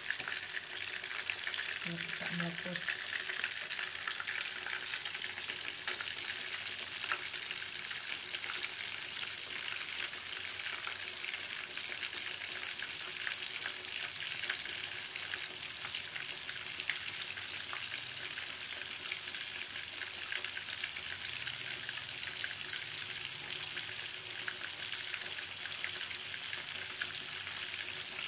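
Flour-coated fish fillets frying in a pan of hot oil: a steady, dense sizzle full of fine crackles.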